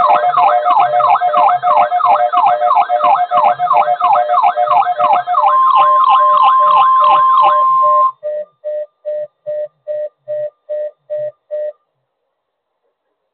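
Weather-radio alert sequence: a loud, fast-warbling siren alarm, about three sweeps a second, joined about five seconds in by the steady 1050 Hz NOAA Weather Radio warning alarm tone. Both stop together about eight seconds in, followed by about ten short beeps, roughly three a second, then silence.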